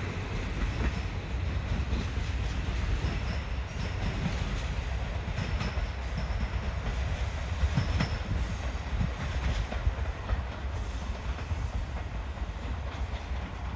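Diesel railcar running on the track, a steady rumble of wheels on rail with a few clicks over the joints, fading a little near the end.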